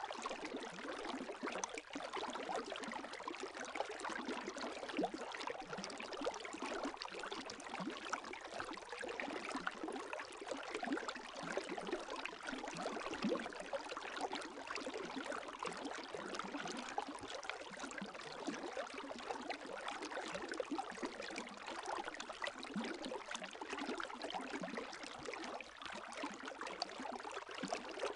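Gentle lake waves lapping: a steady, fine splashing and trickling with no pauses.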